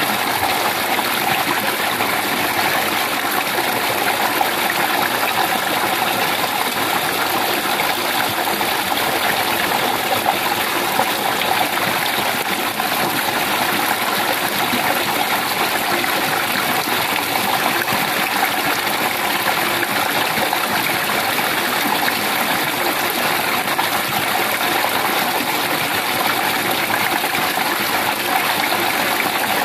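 Steady, unbroken rushing of running water.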